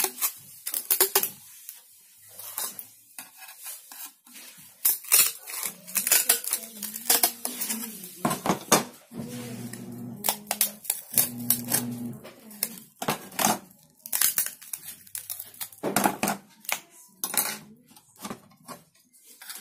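Tin snips cutting through a large abrasive cutting disc, making irregular runs of sharp snaps and crackles as the blades bite and the disc breaks, with short pauses between cuts.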